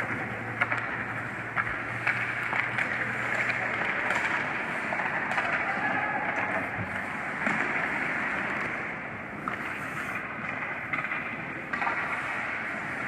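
Ice hockey play: skate blades scraping and carving on rink ice, with several sharp clacks of sticks and puck scattered through. A low hum underneath fades out about four seconds in.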